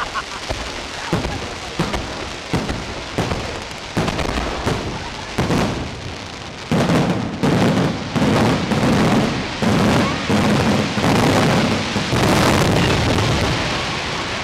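Fireworks display at close range: a quick string of sharp bangs that builds, about halfway through, into a dense, almost continuous barrage of explosions.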